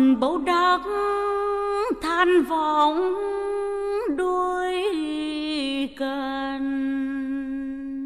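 A woman singing a Tày folk song in drawn-out melismatic phrases, with sliding ornaments between held notes. After a brief breath near the end, she holds one long steady note.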